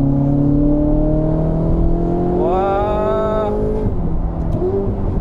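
Ferrari 488 GTB's twin-turbo V8 with an aftermarket exhaust, heard from inside the cabin, pulling in gear with its pitch rising slowly, then dropping as the car eases off about four seconds in. A brief higher-pitched whine joins about halfway through.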